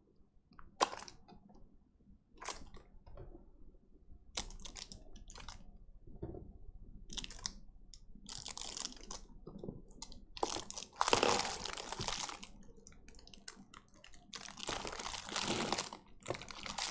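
Metal jewelry pliers being handled and set into an acrylic stand: scattered light clicks and knocks, with two longer stretches of rustling handling noise, about two-thirds of the way in and near the end.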